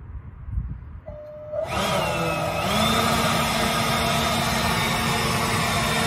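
Leaf blower starting up about a second and a half in. Its whine rises, then holds steady over a rush of air as it blows into the tailpipe to pressurize the exhaust system for a soapy-water leak test.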